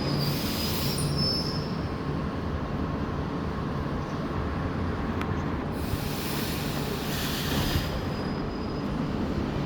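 ED4M electric multiple unit running past at the platform, with a steady rumble and a thin, high wheel squeal during the first second or so. Two bursts of hiss come about a second in and again from about six to eight seconds in.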